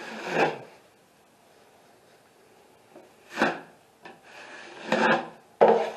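Metal drywall taping knife scraped across joint compound on a ceiling corner in four separate strokes, the last one starting sharply near the end.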